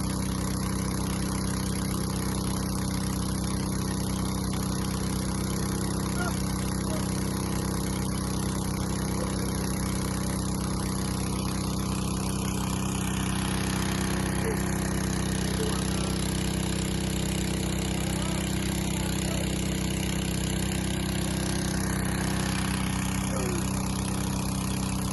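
An engine running steadily at a constant speed, an even hum that neither rises nor falls.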